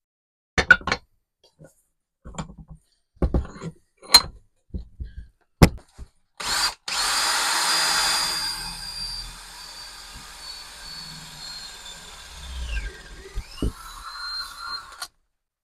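A few sharp knocks and clicks, then a power drill boring out the fibreglass core left in the eye of a steel hammerhead held in a vise. The drill runs with a high whine, loudest for its first couple of seconds. Its pitch dips and recovers near the end.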